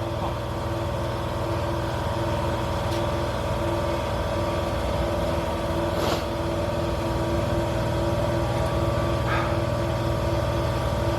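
A motor or engine running steadily, its hum holding an even pitch with one tone pulsing slightly, and a single short click about six seconds in.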